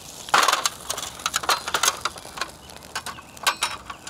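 Wire grill basket clanking down onto a metal sheet pan, a loud clank about a third of a second in, then a string of rattles, clinks and scrapes of wire on metal as it is settled on the pan.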